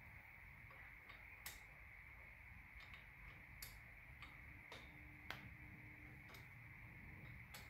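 Faint, irregular light clicks, about a dozen scattered through, as a toe-clip pedal is handled and threaded by hand onto a bicycle crank arm; otherwise near silence.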